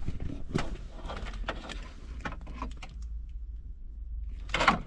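Wiring harness cables and plastic connectors being handled, with scattered small clicks and rustles and one louder rustle near the end.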